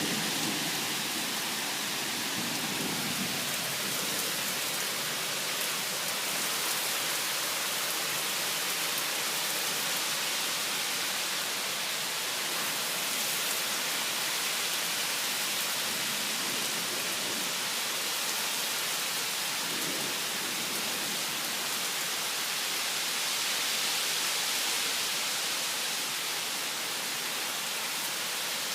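Heavy rain pouring down steadily in a thunderstorm, a dense even hiss of falling water. A low rumble of thunder fades out in the first few seconds.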